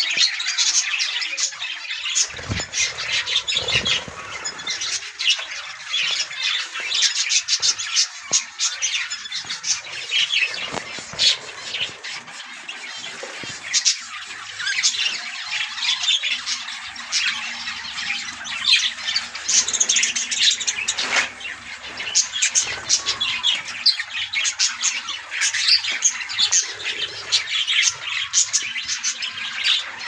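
Budgerigars chattering and squawking, many short high calls overlapping without a break.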